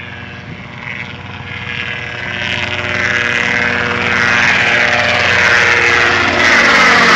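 Aircraft engines growing steadily louder: a small piston helicopter flying low toward and over, with a Junkers Ju 52's engines running for takeoff.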